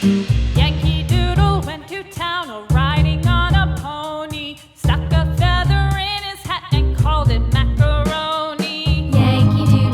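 Background pop music with a sung melody over a steady bass and drum beat.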